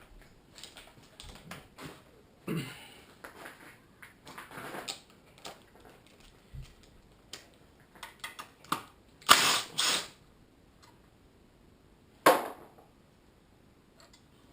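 Hand tools and loose metal engine parts clinking and clattering in scattered knocks as an LS engine is stripped down, with a cluster of louder clanks past halfway and one sharp clank a couple of seconds later.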